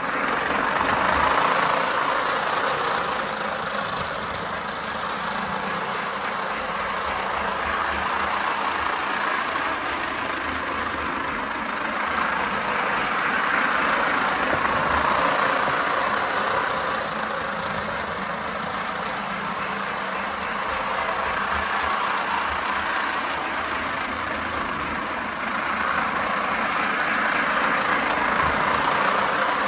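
Lionel Pennsylvania Flyer Lion Chief O-gauge steam locomotive running its smoke unit and sound effects: a steady rushing noise that swells and fades slowly every ten seconds or so.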